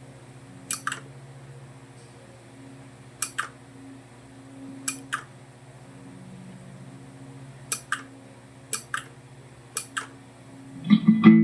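Six pairs of sharp clicks, each pair a quick press-and-release, over the steady electrical hum of a guitar rig through a Mooer GE150 Pro LI multi-effects unit. A guitar chord is strummed near the end.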